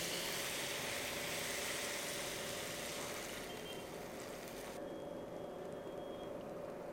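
Chicken and masala sizzling in a hot wok as water is poured in, over a steady kitchen hum with a mid-pitched tone. The hiss of the sizzle thins out after about three seconds.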